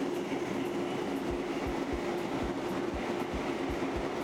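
A Ruston & Hornsby stationary diesel engine driving a land-drainage pump, running steadily with a deep regular knock about three times a second over a steady hum. It is loud enough that those standing by wear ear defenders or cover their ears.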